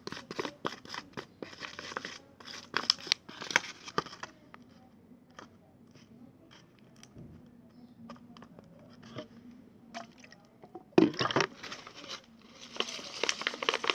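Slime being stirred and handled in a plastic pot: a run of crackling, scraping clicks, a quieter stretch with only faint ticks, then a loud sudden burst about eleven seconds in and more crackling near the end.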